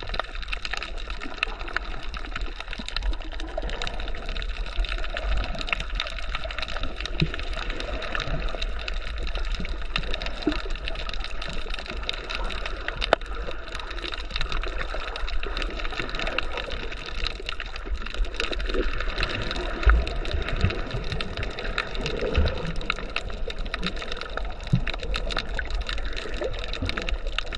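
Underwater sound picked up by a camera beneath the surface: a steady wash of moving water, sprinkled with constant small clicks and crackles. A few low thumps stand out, the loudest about twenty seconds in.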